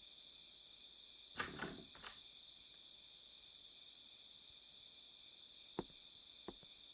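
Faint, steady chirring of crickets, with a couple of soft brief sounds about a second and a half and two seconds in, and small clicks near the end.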